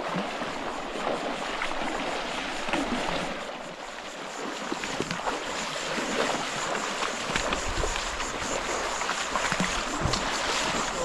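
River water rushing over rocks, a steady wash of flowing water with small splashes scattered through it.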